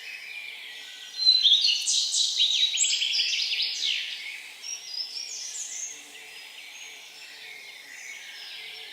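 Songbird singing close by: a loud song of fast trills and rapidly repeated notes starts about a second in, lasts a few seconds and trails off, over fainter calls of other birds in the forest.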